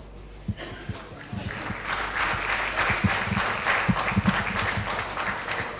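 Audience applauding: the clapping starts about a second in, swells to a full round, then begins to ease off near the end.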